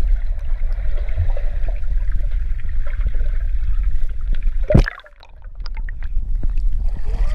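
Muffled underwater swimming-pool sound heard through a camera's waterproof housing: a steady low rumble of moving water with gurgling. Just before five seconds in there is a loud sudden splash-like knock as the camera breaks the surface, then the sound drops for a moment before the water noise comes back.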